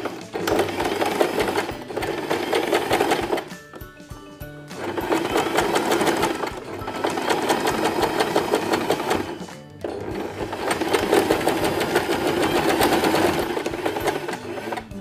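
Domestic sewing machine running a regular stitch in three runs of fast needle strokes, stopping briefly about three and a half seconds in and again just before ten seconds.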